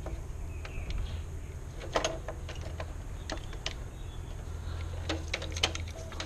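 Scattered clicks and knocks of a plastic circuit breaker and its wires being handled in an open house breaker panel. The loudest knock comes about two seconds in and a cluster comes near the end, over a low steady background hum.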